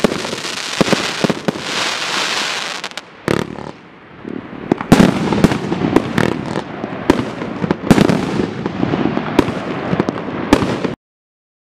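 Dominator '#1 Machine Gun' 72-shot compound fireworks cake firing: dense crackling shots for the first three seconds, then, after a short lull, a rapid string of sharp reports (salutes) about two a second. The sound cuts off suddenly near the end.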